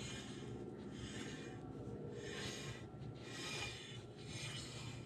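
Faint, repeated rubbing swishes as the rear wheel of a Honda F6B motorcycle is turned by hand. The wheel is being turned while the final drive drains, to work out the last of the old gear oil.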